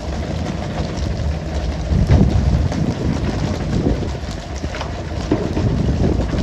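Wind noise on the microphone over a fishing boat's running engine, with a steady hiss of water spray and a few light knocks from the deck.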